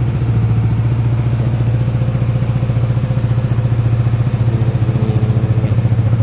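Honda RS150R's single-cylinder four-stroke engine idling steadily through an SCK Racing 32 mm aftermarket exhaust. The note is an even, rapid pulse with no revving.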